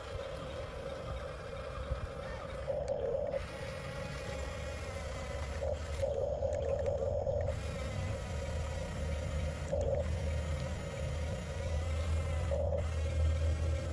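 Small electric drive motors of a 1/14-scale Huina RC bulldozer whining steadily, swelling louder in several short spurts, over a low rumble that grows stronger near the end.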